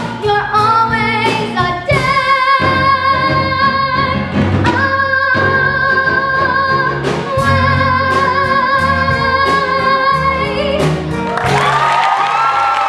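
A solo singing voice with a theatre pit orchestra finishing a song on one long held note. The music cuts off and audience applause starts near the end.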